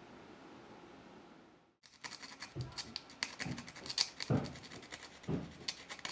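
A small blade scratching and cutting at a 0.1 mm blued brass plate on a wooden work board: a quick, uneven run of sharp scratches and clicks, with a few duller knocks, starting about two seconds in.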